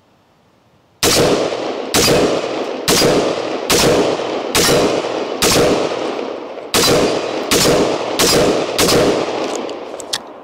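A semi-automatic AR-15 rifle with a 14.7-inch pinned-and-welded barrel firing about ten shots, roughly one a second with a longer pause after the sixth. Each shot rings on in a fading echo.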